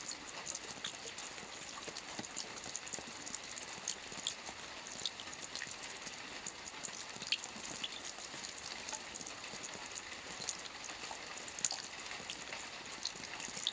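Steady rain, with individual drops pattering irregularly close by over the continuous hiss.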